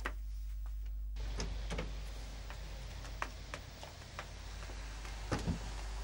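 Faint background ambience with scattered light ticks and clicks at irregular intervals; about a second in, the quiet room tone gives way to a steady outdoor hiss.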